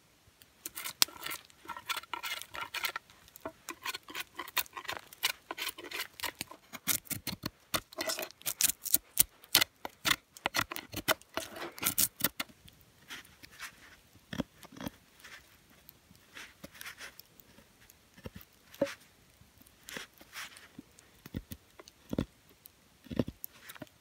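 Steel knife blade scraping and carving a wooden stick in quick, repeated strokes. After about twelve seconds the strokes become sparser and quieter, with a few soft knocks.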